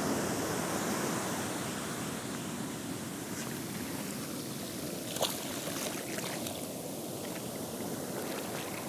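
Ocean surf breaking and washing up the beach: a steady rush of waves and whitewash, a little louder in the first second or two, with a brief tick about five seconds in.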